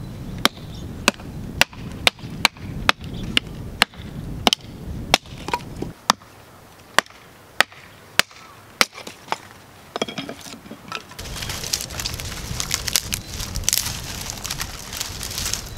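A hatchet chopping into a mimosa tree stump: about sixteen sharp strikes, roughly two a second, over about nine seconds. Near the end, dry grass and sticks rustle and crackle as they are handled.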